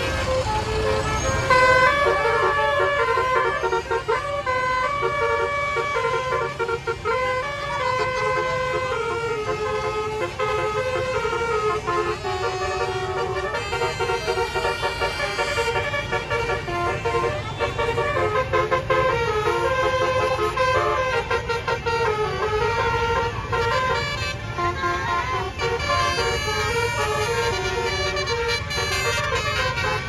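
Tour bus "telolet basuri" multi-tone horn playing a continuous melody, its notes stepping up and down without pause. A low engine rumble runs underneath.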